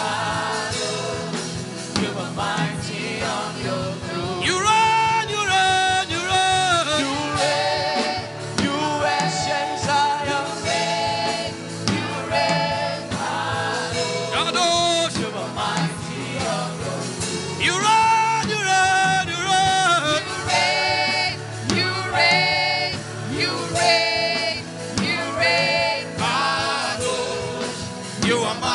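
Gospel worship music: singing in long, wavering held notes over steady instrumental backing.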